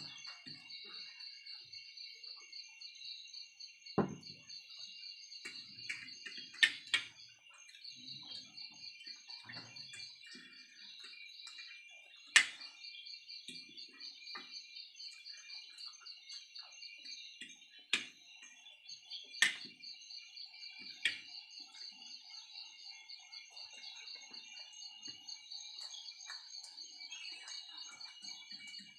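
Spoons clicking sharply against plates about half a dozen times during a meal, with soft handling noises. Under them runs a steady, high-pitched pulsing chirp throughout.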